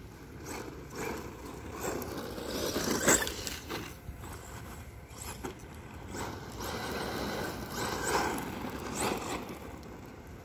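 Brushless-motor RC truck running on gravel. The motor whines up and down with repeated bursts of throttle, the loudest about three seconds in, over the scrabble of tyres on loose gravel.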